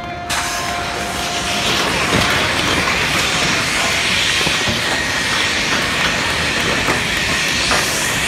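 A large ship's side launch: a loud, steady rushing and hissing roar as the hull slides sideways off the launch ways into the water. The roar starts abruptly under a second in.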